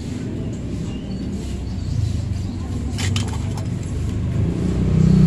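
A motor vehicle engine running steadily, growing louder toward the end. A few light metal clicks about three seconds in as transmission gears are handled.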